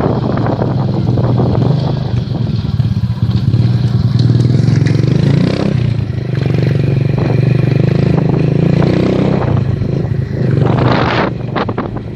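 Strong wind buffeting the phone's microphone: a steady low rumble with flapping, and a burst of rustling and clattering about eleven seconds in.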